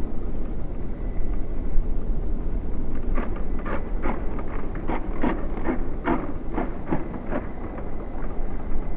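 1/8-scale brushless electric RC motorcycles racing on a tarmac track, heard over a steady low rumble, with a run of about ten short raspy bursts between about three and seven and a half seconds in.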